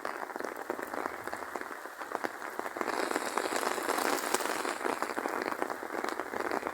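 Rain falling steadily, a dense patter of many drops on hard surfaces that grows heavier about three seconds in.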